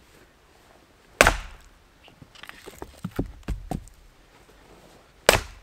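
Firewood being split by hand: two sharp, loud chopping blows about four seconds apart, with lighter wooden knocks in between.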